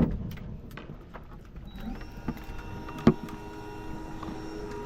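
A loud knock at the start, then about two seconds in a small electric motor spins up and runs with a steady whine, like an electric deep-drop reel winding in line. A second knock comes about three seconds in.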